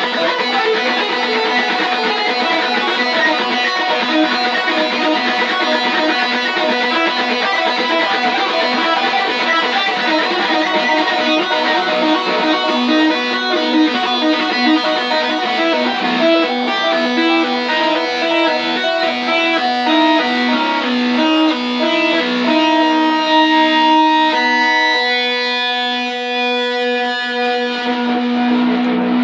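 Electric guitar played through a tape echo: a run of single notes, mostly in the higher register, whose echoes blur into one another. Near the end the playing settles into a few held notes left ringing.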